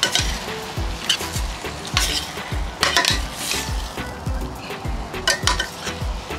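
Metal spoon scraping and stirring curried conch in a stainless steel pan as the food sizzles over a gas burner, over background music with a steady beat.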